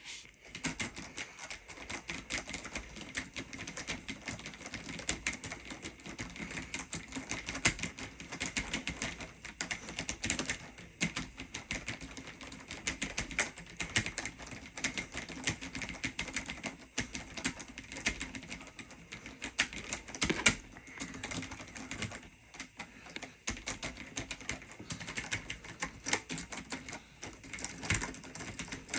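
Computer keyboard being typed on fast and without pause, a dense stream of key clicks with the odd louder keystroke.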